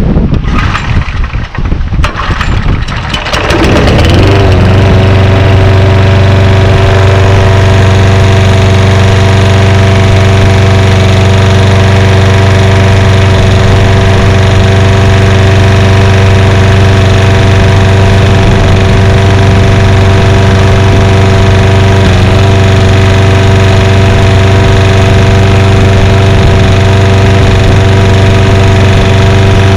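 Briggs & Stratton Quantum single-cylinder four-stroke engine on a 2005 Toro Super Recycler lawnmower, pull-started cold after priming. It catches about three to four seconds in, picks up speed and then runs steadily at governed speed.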